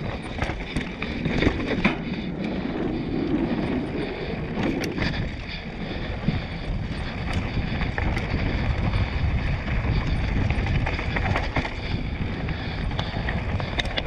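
Mountain bike descending a dirt singletrack: wind rushing over the camera microphone and knobby tyres rolling on dirt and stones, with occasional sharp clacks from the bike rattling over the ground.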